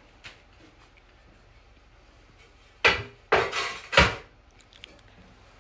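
Three loud knocks or clatters of hard objects in quick succession, a little under three seconds in, after a faint click near the start.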